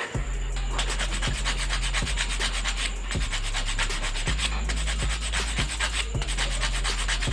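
Sanding on a Swiss Army knife being restored: rough abrasive rubbing in repeated strokes, over a steady low hum.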